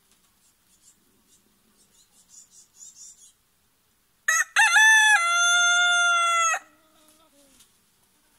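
White rooster crowing once, loud: a few short broken notes, then one long held note that cuts off abruptly, trailing into a fainter, lower note.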